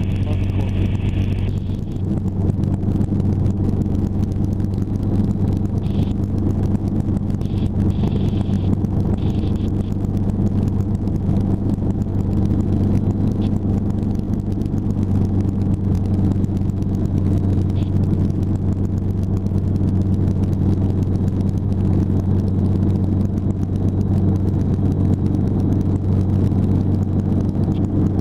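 Hughes 269B light helicopter's four-cylinder Lycoming piston engine and rotors heard from inside the cockpit: a steady, loud drone with a strong low hum, running evenly in flight.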